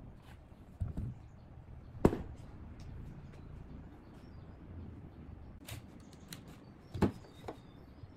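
Scattered knocks and clicks of wooden highchair parts and metal fittings being handled and fitted together, with two sharper knocks, one about two seconds in and one about seven seconds in.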